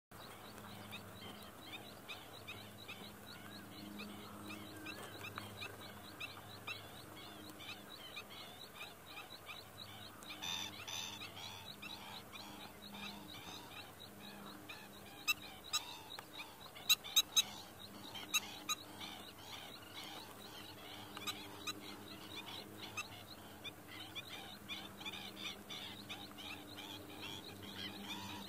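Dense outdoor chorus of many short, rapid, high-pitched animal calls, with a low hum coming and going underneath. A louder burst comes about a third of the way in, and a handful of sharp clicks a little past halfway.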